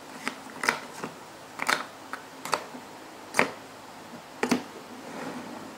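Small plastic mini speed-stacking cups clacking as they are taken down from a pyramid and nested into stacks on a wooden tabletop: about eight sharp, irregularly spaced clicks, the loudest a little past three seconds in, then a short soft scrape near the end.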